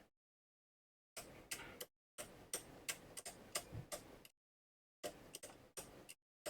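Faint sharp ticks and light scraping of a small craft-knife blade working on a circuit board, in several short bursts with silent gaps between.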